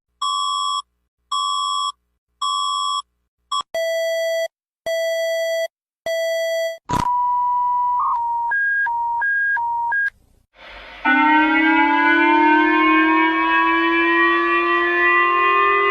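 A series of emergency alert tones: three short beeps, then three lower beeps, then a steady tone that turns into a two-note alternating pattern. About eleven seconds in, an air-raid style siren starts and slowly rises in pitch.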